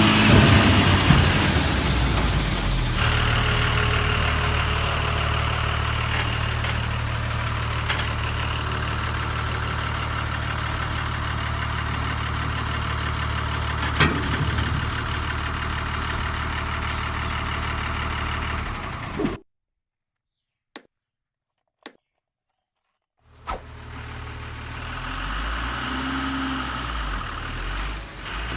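A steady engine-like idling hum. About two-thirds in it cuts off to dead silence for a few seconds, broken only by two clicks, then a quieter running sound returns.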